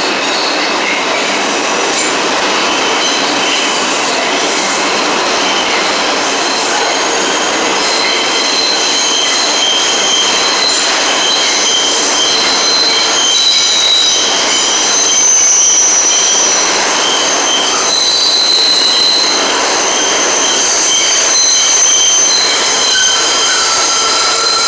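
R142 subway train pulling out of the station, its wheels running on the rails with a steady rumble. High-pitched wheel squeal rises over it and is strongest from about halfway through.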